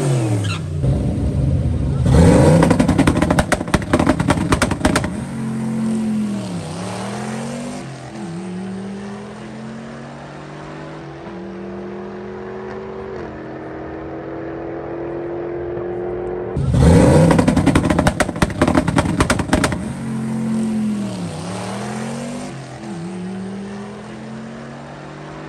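Turbocharged G-body Buick Regal with a manual gearbox making a full-throttle drag-strip pass. It launches loud with crackling exhaust, then the engine climbs steadily in pitch, with a sharp drop at each gear shift. About two thirds in, the same launch and the rising, shift-broken revs start over.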